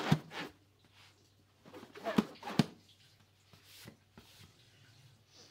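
Inflated latex balloons handled and moved by hand over a pile of deflated balloons: rustling and rubbing latex with a few sharp taps, one at the start and two close together about two seconds in, then fainter rustles.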